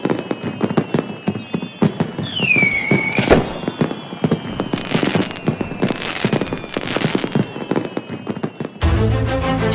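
Fireworks crackling and popping in rapid bursts, with a whistle falling in pitch a little over two seconds in that ends in a loud bang. Music starts near the end.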